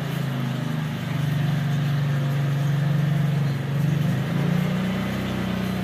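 A loud, steady low hum, like a running engine, that shifts slightly in pitch about four seconds in.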